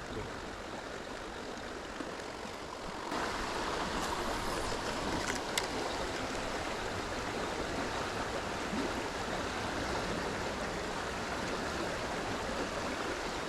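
Creek water running steadily, a little louder from about three seconds in, with one sharp click about five and a half seconds in.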